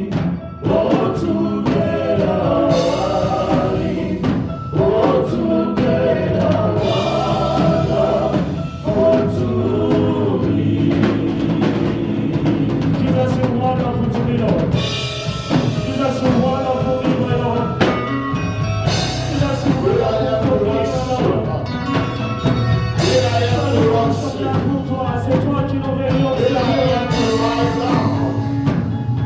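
Live gospel praise music: a group sings over a drum kit and band.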